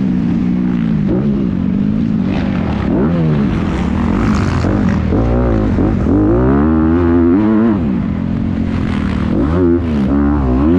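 Motocross dirt bike engine revving hard and easing off over and over, its pitch climbing and dropping every second or two as the throttle is worked.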